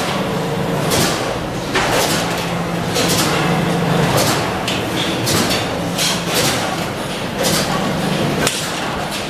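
Metal-workshop noise: a machine hum with a steady low tone that comes and goes, under repeated clanks and scrapes of stainless steel sheet-metal dish-rack panels being handled at a press brake.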